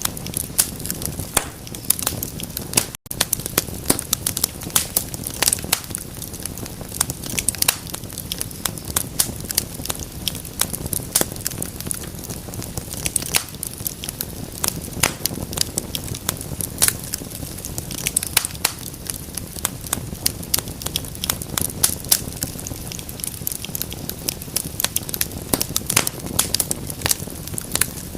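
Wood fire crackling in a fireplace: many sharp, irregular pops and snaps over a steady low rumble of burning. The sound cuts out for a split second about three seconds in.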